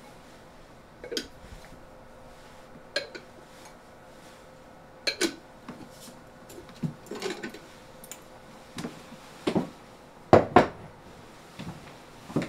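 Bowls clinking and knocking against each other and the counter as they are handled and stacked: about a dozen separate knocks, the loudest two close together about ten seconds in.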